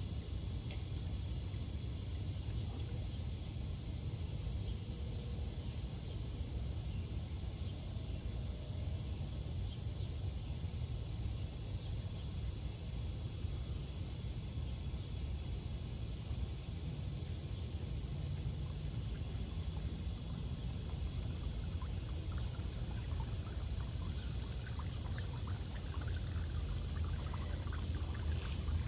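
Garden fountain running, water flowing steadily as its flow returns after the basin was topped up and the pump reset.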